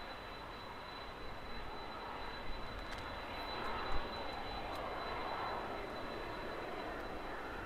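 Japan Airlines Boeing 767-300ER's twin turbofan engines at taxi thrust, a steady rushing jet noise that swells a little about halfway through.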